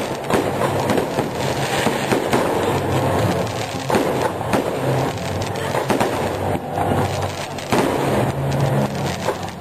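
Fireworks going off: a dense, continuous crackle with sharper bangs every second or two.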